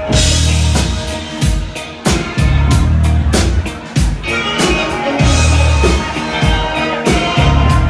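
Live band playing a rock song, with drum-kit hits and a heavy bass line.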